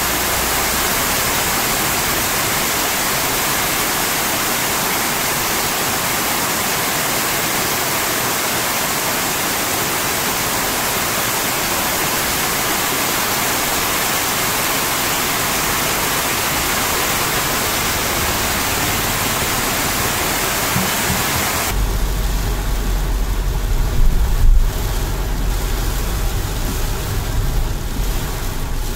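Heavy rain falling, a dense steady hiss. About 22 seconds in it cuts to rain heard from inside a moving car: a low rumble of the car under the softer patter of rain on the windscreen, with one brief louder thump a couple of seconds later.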